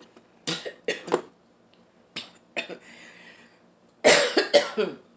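A woman coughing into her hand: a few short coughs early, then a louder run of about three coughs near the end.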